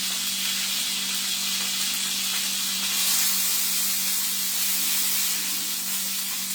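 Chuck roast searing in hot olive oil in a pan: a steady sizzling hiss of frying meat, a little louder about halfway through.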